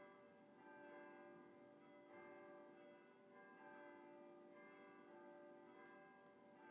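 Faint church bells ringing, a new stroke swelling in about every second and a half while the earlier tones hang on.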